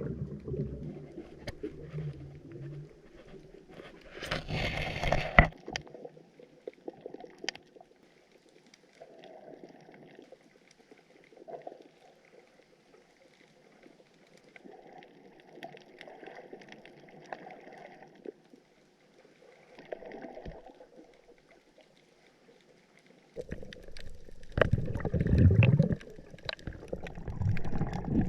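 Muffled water sounds from a spearfishing dive: quiet water movement with scattered faint knocks, a short loud burst of noise about four seconds in, and louder low, churning water noise over the last few seconds.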